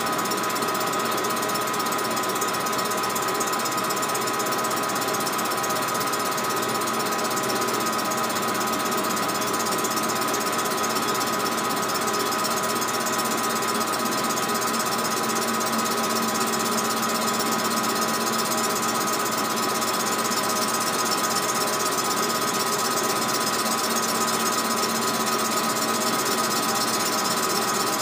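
Metal lathe running steadily as it machines an aftermarket Stihl MS 660 chainsaw cylinder held in the chuck, a continuous mechanical noise with a constant high tone.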